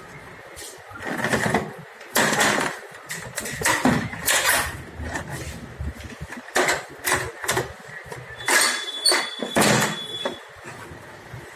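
Plastic panel of an Epson ink tank printer being worked loose and handled: a run of separate scrapes and clacks of plastic parts, about a dozen, irregularly spaced.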